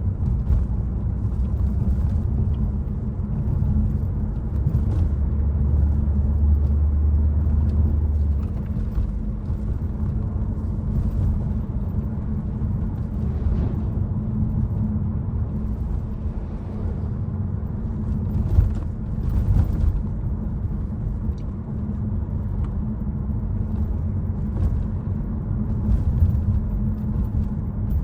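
Citroen C5 Aircross driving in city traffic: a steady low rumble of engine and road noise, with a deeper drone for a few seconds about a quarter of the way in.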